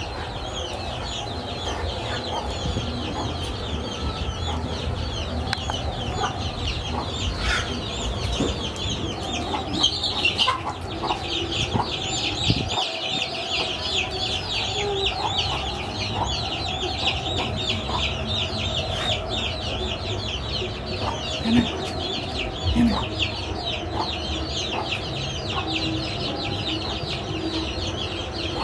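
Domestic chickens calling: many short cheeps and clucks overlap continuously over a low rumble.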